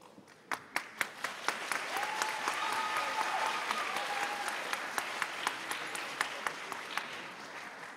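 Audience applauding in an auditorium, starting about half a second in with loud individual claps and fading toward the end.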